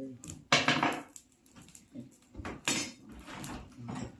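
A few short clattering knocks of hard objects, the loudest about half a second in, with lighter ones later on.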